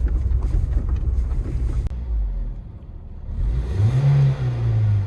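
A 2006 Scion xA's 1.5 L four-cylinder 1NZ-FE engine: a rumble for about two seconds that cuts off suddenly, then one rev that rises quickly and falls back slowly. The engine revs without stumbling, as the intermittent ignition-coil misfire will not show itself.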